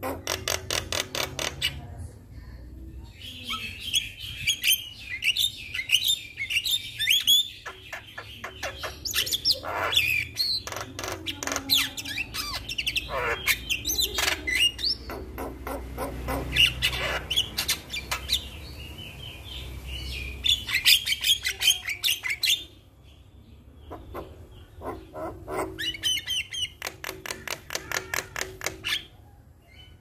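Javan myna (jalak kebo) singing: a varied jumble of whistles, squawks and chatter, with fast rattling clicks near the start and again near the end, and a short pause about two-thirds of the way through.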